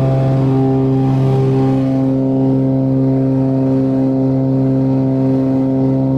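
Cessna 402's twin piston engines and propellers droning steadily, heard from inside the cabin after take-off. The drone wavers slightly for the first couple of seconds, then holds an even pitch.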